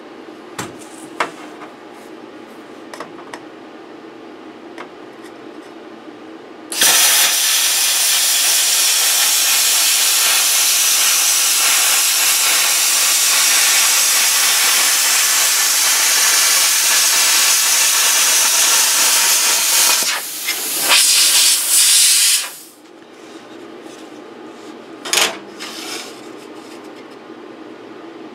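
Handheld plasma cutter cutting sheet metal: a loud, steady hiss of the arc and air jet starting about seven seconds in, then broken into a few short bursts before it stops, over a steady low hum with a few clicks.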